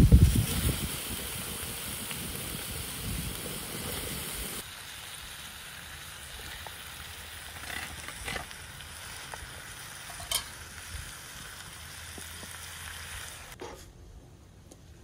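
Food sizzling as it fries, opening with a loud knock, then quieter after an abrupt change, with a few scattered utensil clicks and knocks.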